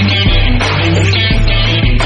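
Background rock music with distorted electric guitar and a steady beat.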